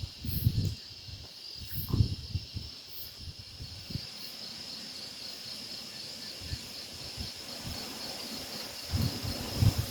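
Insects chirring steadily in a high, evenly pulsing chorus. Gusts of wind buffet the microphone with low rumbles a little after the start, around two seconds in, and near the end.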